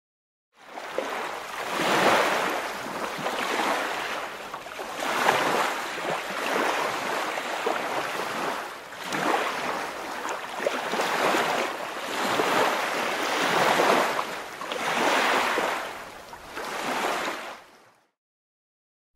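Ocean surf sound: waves washing in, swelling and falling every couple of seconds, then stopping shortly before the end.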